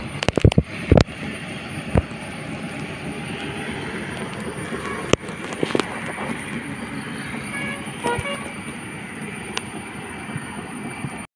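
Road traffic noise on a highway, with a vehicle horn tooting briefly about eight seconds in and a few sharp knocks in the first two seconds.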